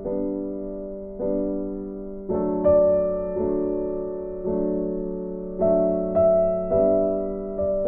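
Background music: soft piano chords struck about once a second, each ringing and fading before the next.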